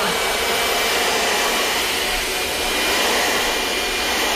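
Upright vacuum cleaner running with a steady rushing drone.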